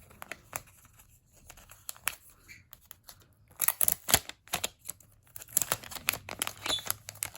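Packaging around a collectible photocard being unwrapped by hand: a few light rustles and clicks, then from about three and a half seconds in a busy run of crinkling and tearing as the wrapping is pulled open.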